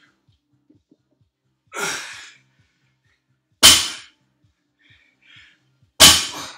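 A loaded 275-lb barbell with bumper plates set down hard on rubber gym flooring between deadlift reps, two sharp thuds about two and a half seconds apart. A heavy exhale comes about two seconds in, with quieter breaths between the reps.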